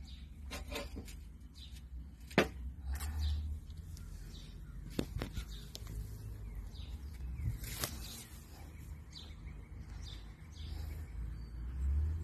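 Outdoor ambience with a steady low rumble on the microphone, broken by a few sharp clicks, the loudest about two and a half seconds in and others near five and eight seconds.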